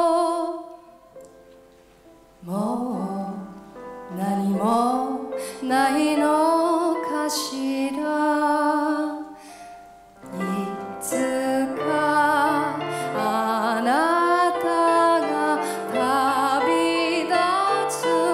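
A woman singing a slow, gentle song to grand piano, her held notes wavering slightly. A held note fades out at the start, and the voice comes back in about two and a half seconds in, with another short break around ten seconds in.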